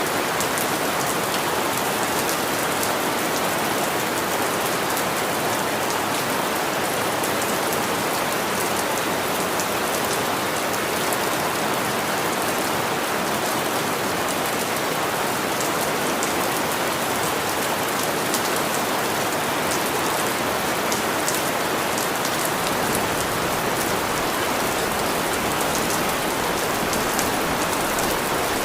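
Steady rain falling, an even hiss with the patter of individual drops. A low rumble builds in the last few seconds.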